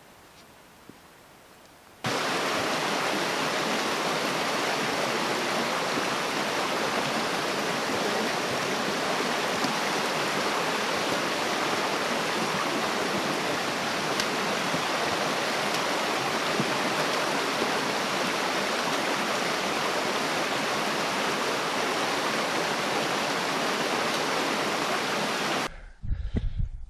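Steady sound of running water from a stream flowing beneath a wooden plank footbridge, beginning abruptly about two seconds in after a quiet start and cutting off shortly before the end.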